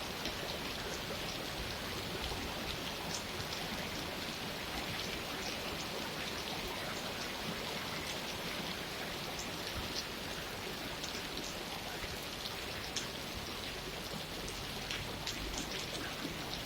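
Steady rain falling, a continuous hiss with many individual drops ticking and pattering on surfaces.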